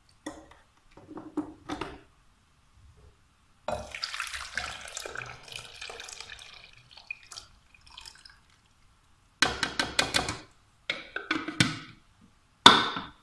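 Freshly squeezed lemon juice poured from a plastic food-processor bowl into a glass bowl: a splashing pour lasting about four seconds. Before it, a few knocks of plastic juicer parts being handled, and near the end several quick runs of plastic clatter and rattling as the juicer parts are handled over the bowl.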